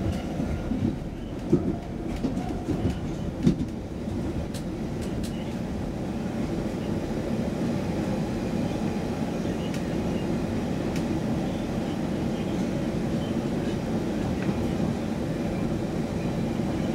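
Stockholm Metro C20 train running at speed, heard from inside the car: a steady rumble of wheels on rail with a steady hum. A few sharp clacks come in the first four seconds, the loudest about a second and a half and three and a half seconds in.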